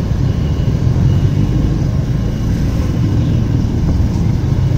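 Steady low rumble of city street traffic, motorbikes and cars moving.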